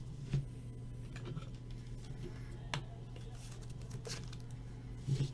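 Trading cards being handled: a few short, soft taps and slides over a steady low hum.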